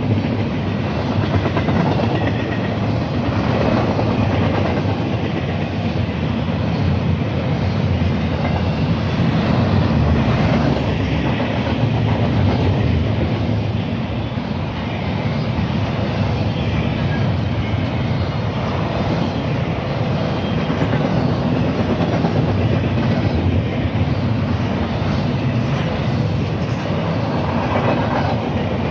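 A train's railcars rolling past on the track: a steady, loud rumble that holds without a break.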